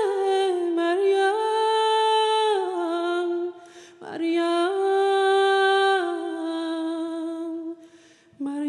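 Choir singing a slow Persian song, holding long notes on the word 'Maryam', with two short pauses for breath about three and a half seconds in and near the end.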